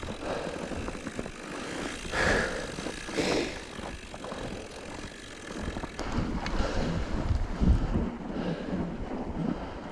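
Wind buffeting the microphone over the crunch and rumble of mountain bike tires in snow, with bumpy low thumps from about six seconds in.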